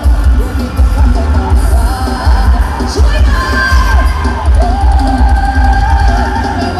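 Live Isan rot hae band music over a sound truck's speaker stack: heavy pulsing bass under a singer's voice, with some crowd yelling. The singing holds long, wavering notes in the second half.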